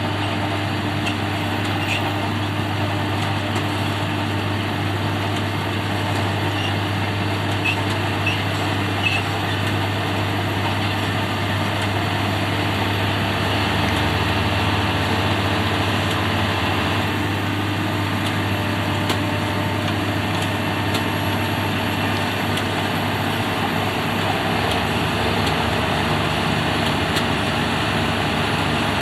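Potato-harvesting machinery running steadily at work, with a constant low engine drone.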